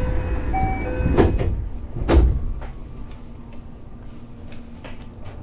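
Passenger doors of a JR West 521 series electric train operating: air hissing, with thuds about one and two seconds in, then a quieter steady low hum.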